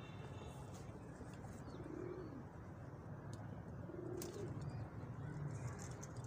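Domestic pigeons cooing, two low coos about two and four seconds in, over a steady low hum.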